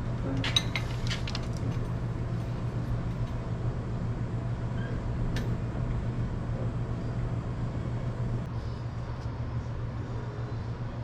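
Light metallic clinks and clicks of steel pieces and tools being handled, clustered in the first second and a half with one more click about five seconds in, over a steady low hum.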